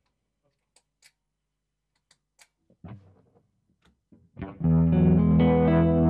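A few faint clicks, then about four and a half seconds in an electric guitar chord on a Fender Telecaster rings out and sustains through a Fender Pinwheel rotary-speaker (Leslie) emulator pedal.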